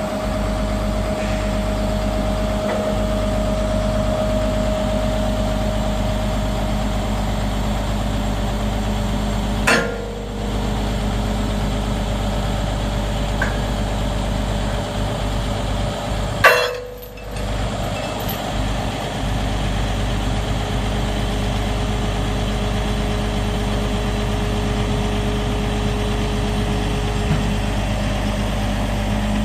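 Skip loader truck's diesel engine running steadily, driving the hydraulics as the lifting arms lower a heavy lathe on chains. Two sharp clunks break in, about ten seconds and about sixteen seconds in.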